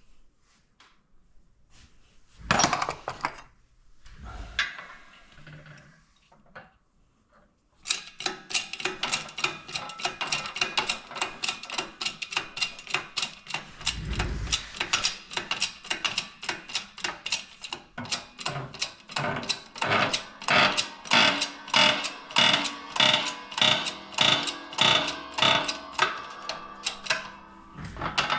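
A hammer tapping repeatedly on a metal engine part, each tap ringing. A few scattered knocks come first, then from about eight seconds in a steady run of taps, roughly three a second, getting louder toward the end.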